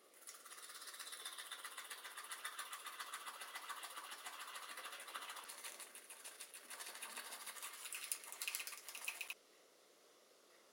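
Toothbrush bristles scrubbing teeth in quick back-and-forth strokes, a scratchy brushing sound that cuts off suddenly near the end.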